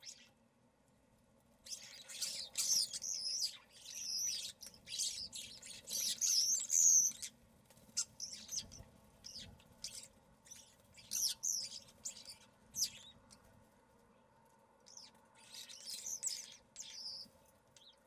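Common starlings calling: squeaky, wavering whistles and chatter in three bouts, the loudest in the first few seconds, over a faint steady hum.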